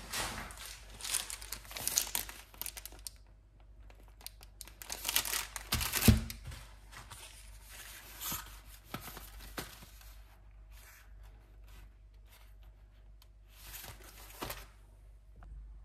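Plastic snack wrappers and a cardboard chocolate box crinkling and rustling as they are handled and set down, in several bursts, with a knock about six seconds in. The rustling thins out in the second half.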